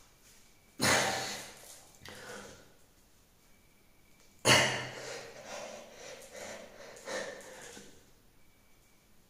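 A man breathing hard from the effort of doing push-ups: two sudden forceful exhales, about a second in and again about four and a half seconds in, each trailing off into quieter panting breaths.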